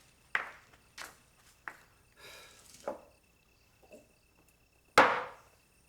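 An old woman coughing: a string of short, separate coughs a second or so apart, the loudest about five seconds in.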